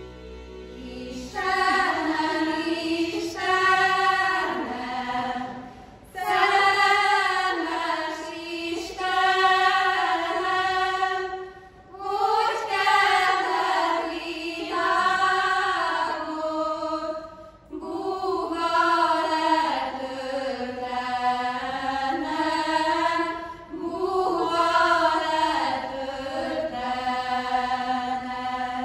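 A small group of women singing a Hungarian folk song unaccompanied, one melody line in long held phrases with short breaks for breath.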